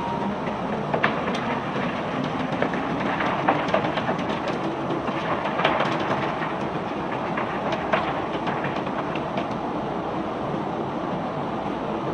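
Cobblestones being unloaded from a barge by machinery: a steady machine rumble with irregular sharp knocks and clatters of stone striking stone and steel every second or two.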